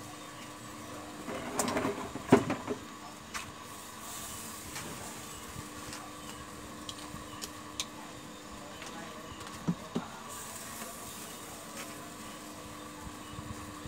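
Steady mechanical hum of a belt-and-pulley rotisserie drive turning a whole pig on a spit over charcoal, with a cluster of knocks and clatter about two seconds in and a few sharp clicks later.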